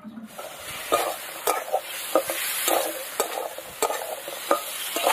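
Crab pieces sizzling as they are stir-fried in thick spice masala in a metal kadai, while a metal spatula scrapes and knocks against the pan about three times every two seconds. This is the kosha stage, the crab being sautéed dry in the masala before water is added.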